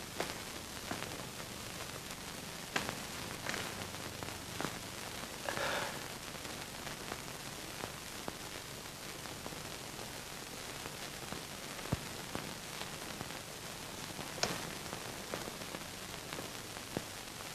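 Steady hiss with scattered clicks and pops from a worn old film soundtrack, and a soft rustle about six seconds in.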